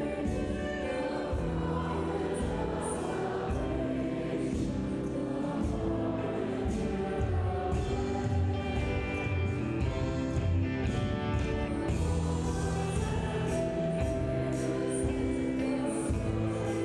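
Voices singing a hymn together with a praise band accompanying, with a steady beat and bass line.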